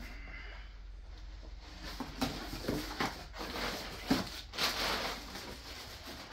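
Crumpled brown packing paper rustling and crinkling as it is pulled out of a cardboard box by hand, with the box flaps scraping. The handling noise comes in irregular bursts from about two seconds in.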